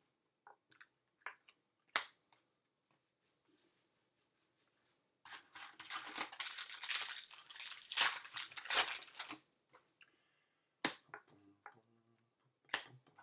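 Trading card pack wrapper crinkling and tearing open for about four seconds, about midway through. Before and after it come scattered sharp clicks and taps of cards being handled.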